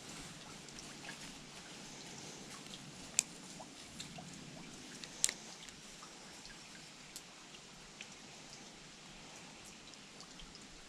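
Faint steady hiss of creek water, with scattered sharp clicks and two louder ticks about three and five seconds in.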